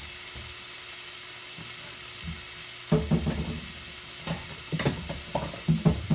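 Ground pork frying in a nonstick skillet on the stove, a steady sizzle, with several sharp knocks and clatters starting about three seconds in.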